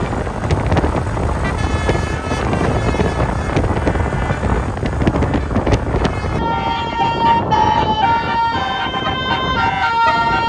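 Indonesian bus 'telolet basuri' multi-note musical horn playing a tune over loud vehicle noise. About six seconds in the horn melody comes through clear and loud, stepping from note to note a few times a second.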